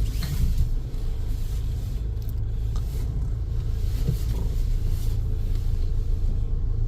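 Steady low road and drivetrain rumble inside the cabin of a Mahindra Scorpio-N on the move, with a couple of faint clicks.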